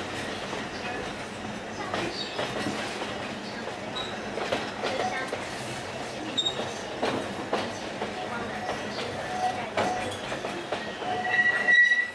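Alishan Forest Railway narrow-gauge train running, heard from on board: steady rumble with wheels clacking over the rail joints and squealing at intervals, a loud high squeal near the end.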